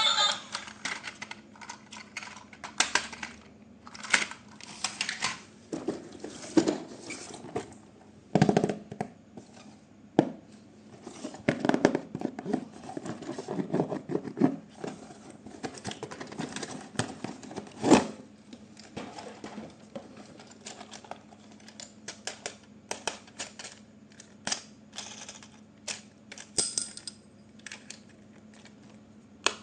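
Hands handling a toy and its plastic and cardboard packaging: irregular clicks, taps and rustling, some in quick clusters, with a louder knock about 18 seconds in.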